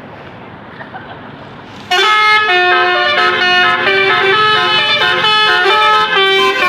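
Basuri telolet horn, a multi-trumpet musical air horn, cuts in suddenly about two seconds in and plays a loud tune of several notes sounding together, stepping from note to note. Before it there is only a steady background rush.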